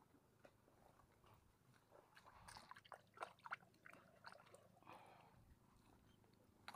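Faint wet squelches and clicks of bare feet stepping through soft mangrove mud, clustered from about two to five seconds in.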